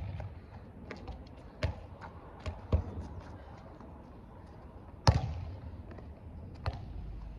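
A ball thudding a few times as it is kicked and lands on the ground, the loudest thud about five seconds in.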